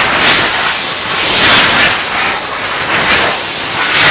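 Compressed-air blow gun on a shop air hose blasting sanding dust off freshly sanded poplar boards: a loud, continuous hiss of air that swells and eases a little.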